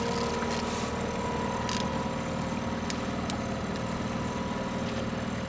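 Outboard motor running steadily at trolling speed, a low, even engine hum with a few short sharp clicks in the middle.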